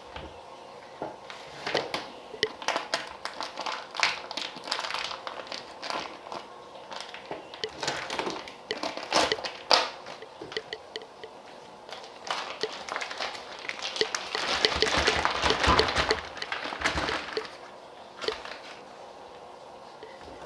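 Plastic packaging crinkling and rustling as it is handled, with scattered clicks and knocks; a longer, louder stretch of rustling about three quarters through.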